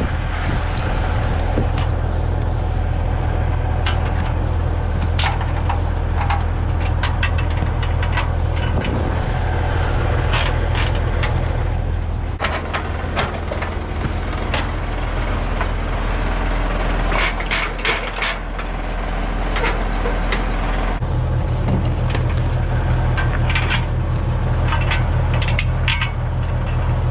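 Car-hauler truck's engine running steadily at idle, mixed with scattered metallic clanks and clicks from work on the trailer. The engine's low hum drops away for several seconds about halfway through, then returns.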